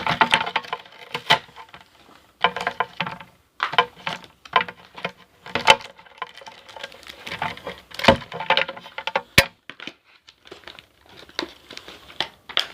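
Plastic blister packaging of a trading-card pack being handled and pulled open: irregular crinkling, rustling and sharp plastic clicks with short pauses between them.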